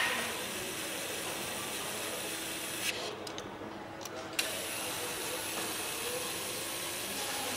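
Powered nutrunner running down the bolts that fasten a flywheel to the crankshaft, a steady mechanical whirr. It stops for about a second and a half near the middle, with a sharp click as it stops and another as it starts again.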